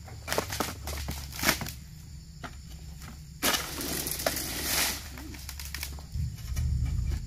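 Palm fronds rustling and swishing as a long pole-mounted harvesting blade works in an oil palm's crown. A few sharp clicks come in the first second and a half, and a longer rush of rustling comes about three and a half seconds in. A low rumble is heard near the end.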